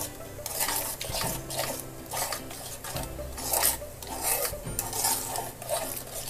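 A spoon scraping and stirring around a steel bowl in repeated strokes, working cocoa powder into hot sunflower oil and ghee as it turns from a gritty mix into a smooth chocolate paste.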